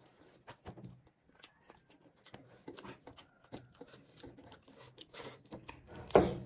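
Close-up eating sounds: soft chewing and mouth clicks, with fingers mixing rice and curry on steel plates, as short scattered clicks and rustles and one louder burst near the end.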